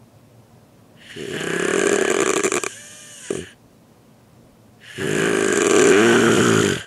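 A person snoring: two loud snores about four seconds apart, each lasting a second and a half or so, the first ending in a brief pitched whistle.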